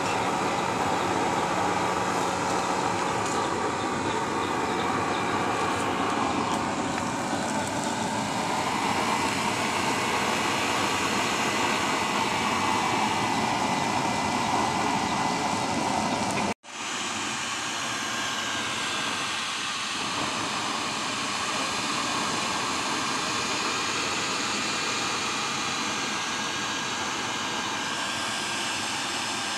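Electric blower driving air down a pipe into the fire of a homemade forced-air stove: a steady rushing roar of blown air and flame with a faint motor whine. It drops out for an instant just past halfway, then carries on a little quieter.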